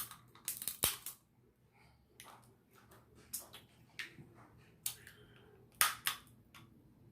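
Close-up eating sounds of seafood being chewed: a run of irregular, sharp, wet mouth clicks and lip smacks, most in the first second and again around five to six seconds in.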